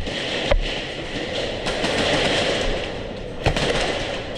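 Rapid clatter of airsoft guns firing, with sharp cracks at the start, about half a second in and about three and a half seconds in.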